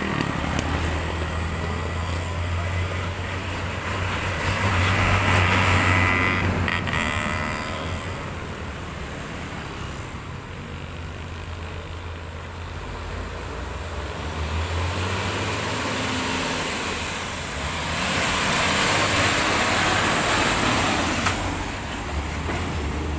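Heavy diesel trucks with lowbed trailers driving past close by: a steady low engine drone with tyre rush. It swells twice, about five seconds in and again near the end as trucks go by.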